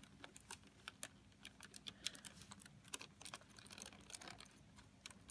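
Faint, irregular plastic clicks and taps of Lego Technic beams, pins and axles being handled and slid into place.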